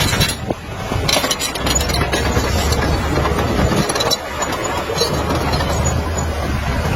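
Heavy diesel earthmoving machinery running, a steady low engine drone with scattered clanks and rattles.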